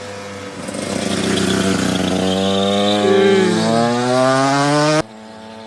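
Two-stroke dirt bike engine accelerating hard, its pitch climbing steadily and growing louder. It cuts off abruptly about five seconds in, leaving a quieter steady hum.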